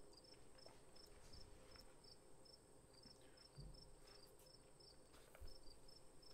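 Near silence: faint room tone with a faint high-pitched chirp repeating about three to four times a second.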